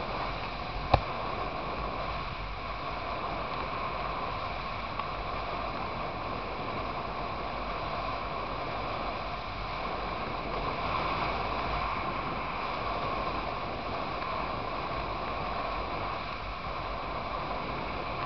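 Motorcycle riding at steady road speed: wind rushing over the microphone with steady road and engine noise. A single sharp click comes about a second in.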